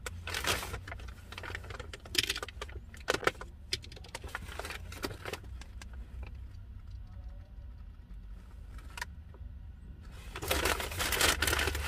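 Fast-food takeout packaging being handled: rustling paper and wrappers with many small clicks of lids and containers, a denser rustle near the end, over a steady low hum.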